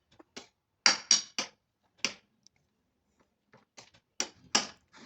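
Spoon tapping against a bowl while a mixture is stirred: about eight sharp, irregular clicks, several in the first two seconds, a pause in the middle, then more near the end.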